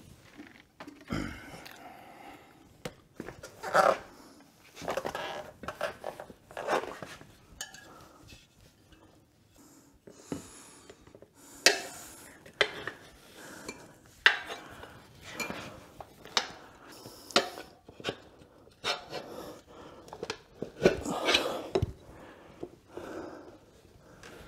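Hand tire-changing on a dirt bike rear wheel: irregular metallic clinks, knocks and scrapes of tire irons against the rim and tire, with short pauses between strokes.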